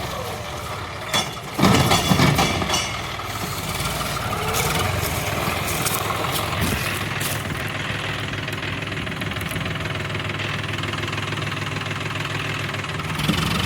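Tractor diesel engine running steadily, with a short burst of loud clattering knocks about one to three seconds in.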